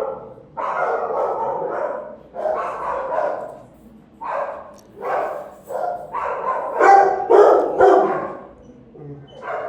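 Shelter dogs barking in their kennels: a run of barks, some drawn out, loudest about seven to eight seconds in.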